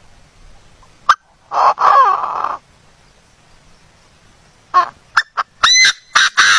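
A bird calling loudly: a sharp click, then one harsh call of about a second that falls in pitch, and near the end a quick run of short, sharp calls that rise in pitch.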